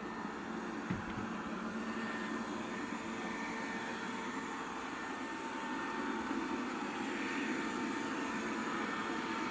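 Robit V7S Pro robot vacuum running steadily, its motor and brushes making a steady whirring hum, with a short knock about a second in.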